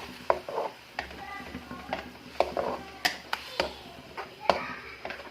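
A cooking utensil knocking and clicking against a pan at irregular intervals while ground meat is stirred in the pan.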